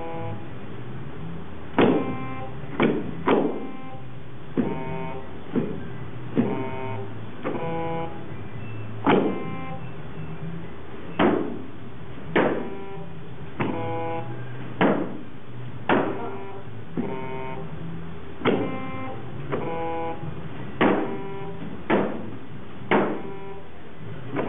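Giant floor-sized Simon game sounding a series of short, steady electronic notes, interleaved with about twenty sharp hits, roughly one a second.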